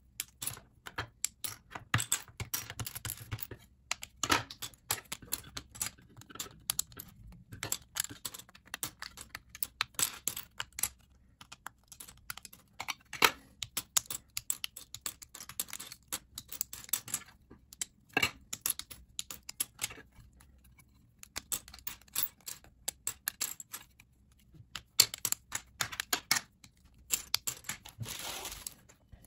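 Plastic LEGO bricks being pulled apart by hand and dropped onto a pile of loose pieces: irregular sharp clicks and clatters with a few short pauses, and a brief continuous rattle near the end.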